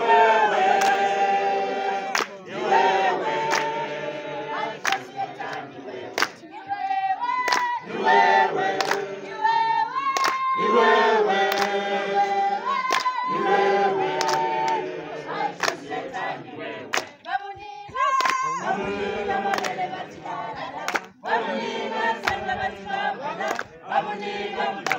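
A crowd of protesters singing a protest song together without instruments, in held, swelling notes. Sharp claps keep a steady beat a little more than once a second.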